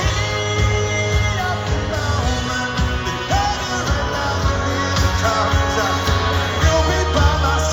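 Rock band playing live, with a singer's voice over the band.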